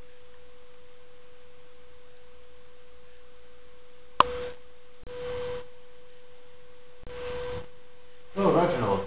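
A steady pure tone at one mid pitch, held unbroken, with a sharp click about four seconds in and a voice starting near the end.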